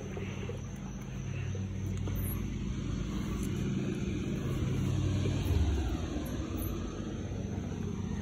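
Hand-pushed drum lawn roller rolling over freshly seeded topsoil and grass, a steady low rumble that grows a little louder about five seconds in.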